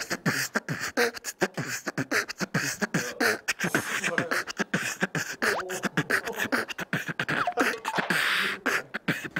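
A man beatboxing into his cupped hand: a fast stream of mouth-made kick, snare and click sounds mixed with short sung vocal sounds.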